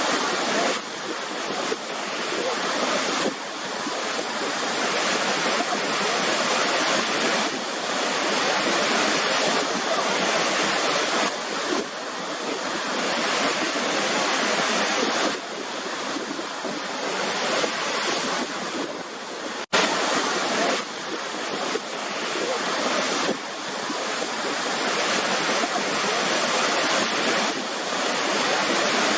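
Waterfall pouring: a steady rush of falling water with gentle swells in loudness every few seconds. There is a momentary break about twenty seconds in.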